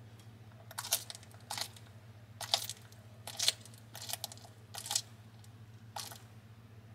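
Bearded dragon crunching a live giant horned hissing cockroach in its jaws: about seven crisp crunches of the roach's hard shell, irregularly spaced over several seconds. A faint steady low hum runs underneath.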